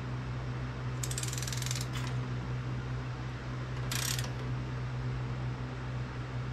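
Socket wrench ratchet clicking on a Briggs & Stratton OHV engine's cylinder head bolt as the bolts are tightened in sequence: about a second of rapid clicks near the start, and a shorter burst about four seconds in. A steady low hum runs underneath.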